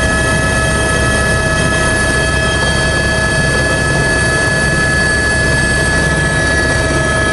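Eurocopter AS350 B3 helicopter heard from inside the cockpit: its single Turbomeca Arriel 2 turboshaft and drivetrain running steadily, several high whining tones over a dense low rumble.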